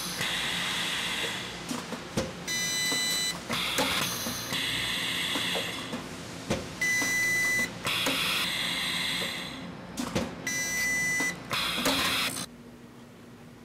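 Orbitform hot upset forming machine cycling on a tungsten part: a hissing rush, sharp clicks and a buzzing tone, repeating three times about every four seconds. Near the end the sound drops to a quiet steady hum.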